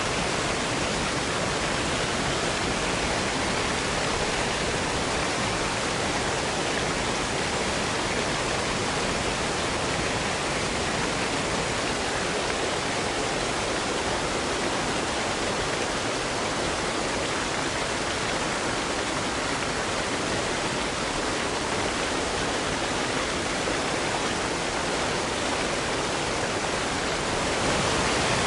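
Waterfall: a steady, even rush of falling water that rises slightly near the end.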